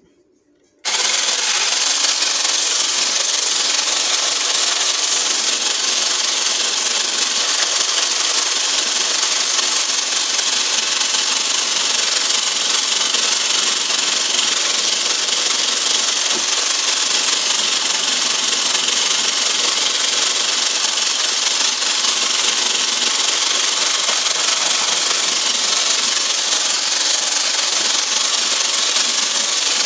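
Stick blender with a whisk attachment switching on about a second in and then running steadily, beating egg whites in a metal bowl into a stiff meringue.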